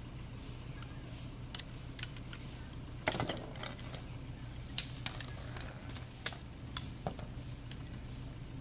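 Metal poles of a collapsible camp chair frame clicking and clattering as they are pulled from the bag and unfolded: scattered sharp clicks, with a short burst of clattering about three seconds in.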